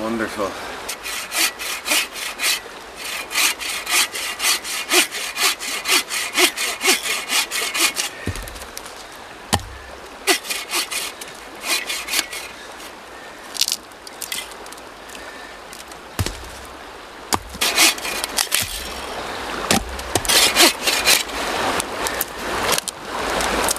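A hand saw cutting through a dead tree trunk in runs of quick back-and-forth strokes, stopping now and then, with a few dull knocks between runs.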